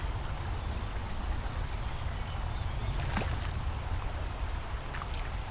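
Outdoor riverbank noise: a low, fluttering rumble of wind on the microphone over an even hiss of flowing river water. A couple of faint clicks come about three and five seconds in.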